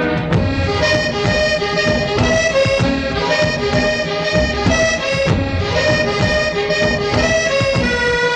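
Instrumental music: a melody of short held notes moving from pitch to pitch over a steady low accompaniment.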